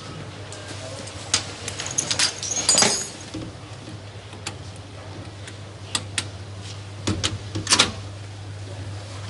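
Metal clicks and rattles of a coin-operated left-luggage locker as its code knobs are turned and its handle tried: scattered sharp clicks, with a louder metallic rattle about three seconds in and another near the end.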